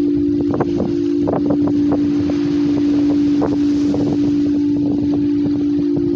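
Singing bowl sounding one steady, sustained low tone, with wind buffeting the microphone.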